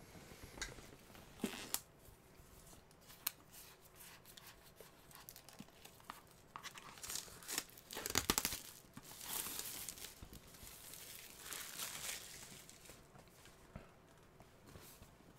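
Quiet handling noise as plastic Blu-ray cases are slid out of a cardboard slipcase box: faint scraping and rustling with a few sharp clicks, busiest about eight to twelve seconds in.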